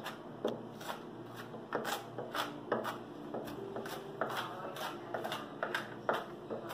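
Kitchen knife mincing garlic and onion on a plastic cutting board: uneven quick taps of the blade on the board, about two a second.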